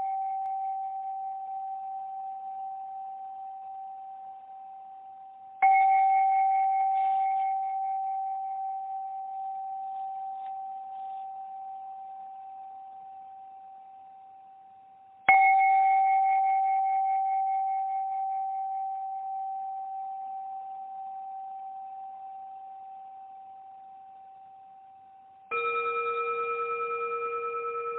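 Singing bowls struck one at a time, each ringing in a long, slowly fading tone. A higher bowl is struck twice, about ten seconds apart. Near the end a lower bowl is struck, its tone wavering slightly.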